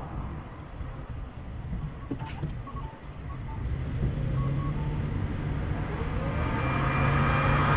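Street traffic picked up by a car's outside-mounted camera microphone: a steady low rumble of engines and tyres, a few short electronic beeps in the middle, and near the end a louder rising wash of noise with several whining tones.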